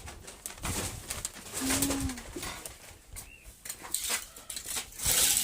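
A pigeon cooing once, briefly, among repeated bursts of rustling noise, the loudest near the end.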